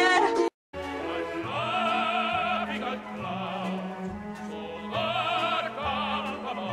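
Operatic music: a singing voice with wide vibrato over steady held orchestral notes. It follows an abrupt cut and a brief silence about half a second in.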